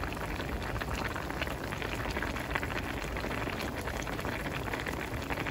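Pot of Korean seaweed soup (miyeokguk) boiling hard: a steady bubbling hiss with constant small pops.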